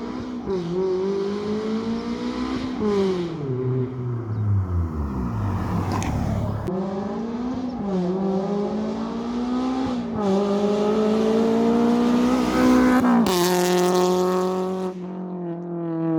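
Honda S2000's four-cylinder engine through a Buddy Club Spec II exhaust, accelerating hard with its pitch climbing through the revs again and again. It drops back between climbs, as at gear changes, then holds high and steady near the end.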